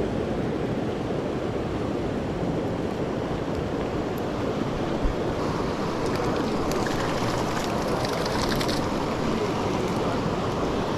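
Creek water rushing steadily over a riffle, an even wash of noise with faint crackling near the middle.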